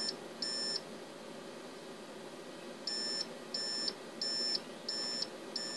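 Buffalo TeraStation NAS's alarm buzzer beeping: short, high beeps about one and a half a second, two near the start and five more after a pause of about two seconds, over the steady whir of its cooling fans. The beeping is the unit's error alarm: the RAID 5 array is in degraded mode after a drive failure.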